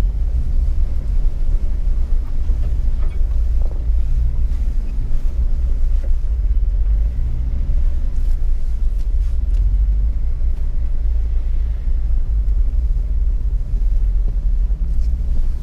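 Steady low rumble of a vehicle crawling along a rough off-road trail, with a few faint knocks.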